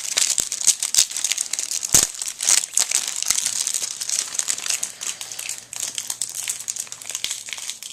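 A trading-card pack wrapper being handled and torn open, crinkling and crackling irregularly, with one sharp tear about two seconds in.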